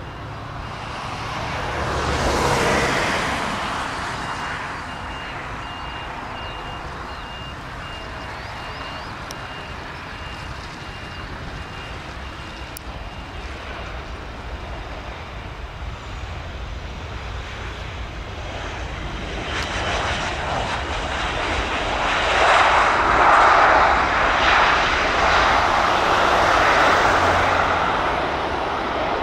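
Boeing 737 airliner's jet engines on landing: a steady roar that swells briefly early on, then grows much louder and stays loud through the last third as the jet rolls down the runway. A faint repeated beep sounds through the first half.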